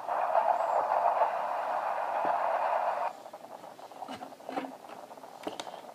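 Audio from a scary YouTube video playing on a device: a steady noisy hiss, like static, that cuts off suddenly about three seconds in, followed by a few faint clicks and knocks.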